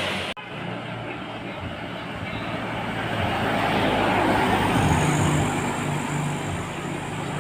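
A vehicle passing on the road: its engine and tyre noise build to a peak about five seconds in, then ease off.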